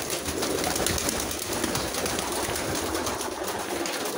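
Domestic pigeons cooing, over a steady rustling, scuffling noise.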